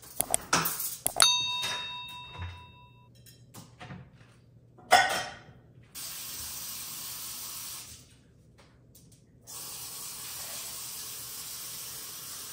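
Kitchen faucet running into the sink, turned on for about two seconds and then again for about three, with a steady hiss that starts and stops abruptly. Before it come a few clicks, a ringing ding and one loud clank about five seconds in, typical of glassware and dishes being handled at the sink.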